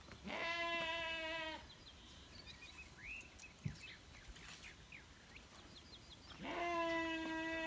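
Lamb bleating twice, each a long, steady bleat of about a second and a half, about five seconds apart. Faint small bird chirps come in between.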